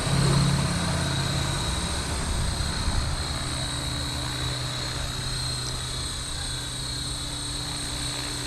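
Blade Fusion 360 electric RC helicopter hovering and flying: a steady high motor whine over the rotor blades' hum, with wind noise on the microphone.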